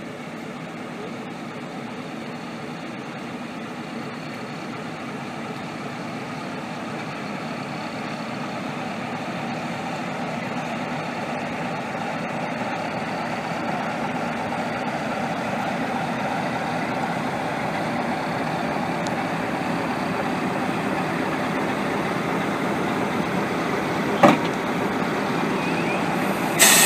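Class 47 diesel locomotive's Sulzer twelve-cylinder engine running as the locomotive draws slowly up to and past the listener, growing steadily louder as it approaches. A single sharp knock comes about three seconds before the end.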